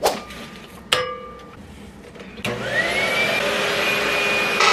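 A vacuum cleaner is switched on after a couple of clicks. Its motor spins up with a rising whine, then runs steadily.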